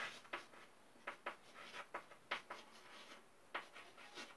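Chalk writing on a blackboard: a string of short, irregular taps and scrapes, a few each second, as letters are written.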